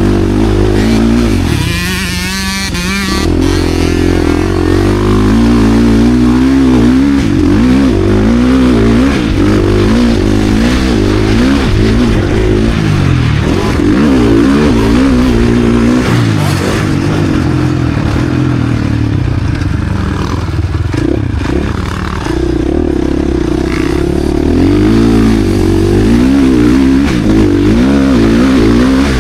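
KTM SX-F Factory Edition motocross bike's four-stroke single-cylinder engine being ridden hard on the track. Its pitch keeps rising and falling as the throttle is opened and closed through the gears, with a short off-throttle lull about two seconds in.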